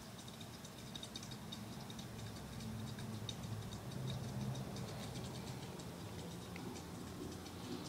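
Faint, irregular light ticking and clicking over a low steady hum.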